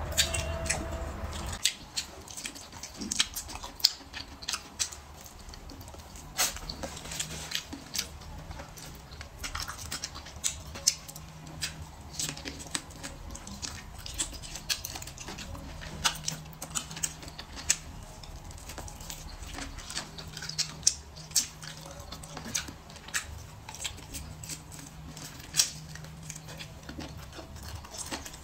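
Close-up eating sounds: chewing roast poultry with crisp skin, with irregular wet mouth clicks and crunches and a few sharper ticks of chopsticks.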